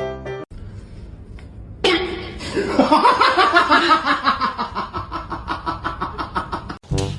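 A person laughing hard, breaking out suddenly about two seconds in and running on as a fast string of ha-ha pulses, about five a second, until it stops near the end. Piano music is heard briefly at the very start.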